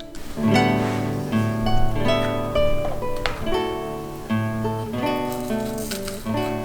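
Background music led by plucked and strummed acoustic guitar with a bass line.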